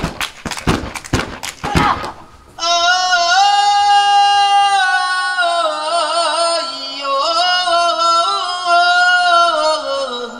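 Sharp percussive strikes, about four a second, for the first two seconds. Then a solo voice sings long held notes with wavering, ornamented turns.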